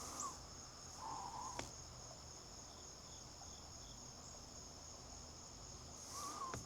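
Steady high-pitched insect chorus running on without a break, with three short low whistled notes (at the start, about a second in, and near the end) and a couple of sharp clicks.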